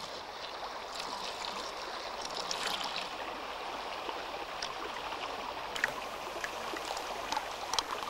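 Steady running water pouring from pipes into wooden hatchery troughs, with scattered small splashes and ticks.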